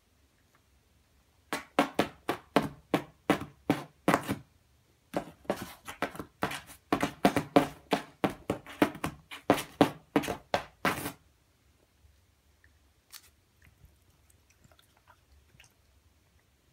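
Cat's claws scratching at a paper sticker on a cardboard box: quick rasping strokes, a few a second, in a short run and then a longer one, stopping about two-thirds of the way through.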